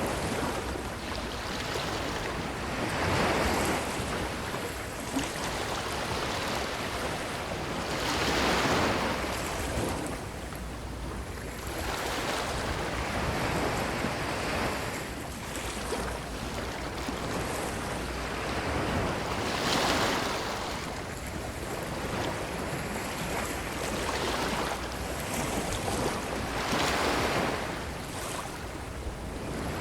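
Ocean waves washing up on a beach: a steady surf hiss that swells into a louder wash each time a wave breaks, every few seconds at uneven intervals.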